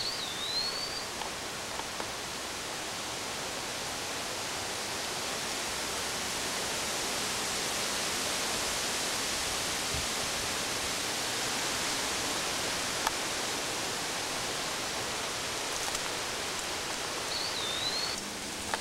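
Steady hiss of woodland outdoor ambience, with a bird whistling a short swooping note at the start and again twice near the end.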